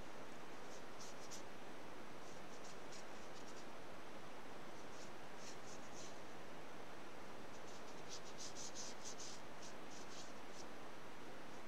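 Short, scratchy strokes of a small paintbrush across watercolour paper, coming in several little clusters and busiest towards the end, over a steady faint hiss.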